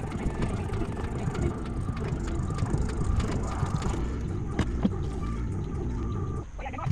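Body filler (Bondo) being mixed by hand with a spreader on a mixing board: continuous scraping and rattly clicking, ending about six and a half seconds in.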